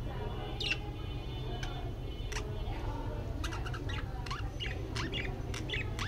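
Budgies chirping in short, sharp calls: a few single chirps at first, then several a second through the second half. A steady low rumble runs underneath.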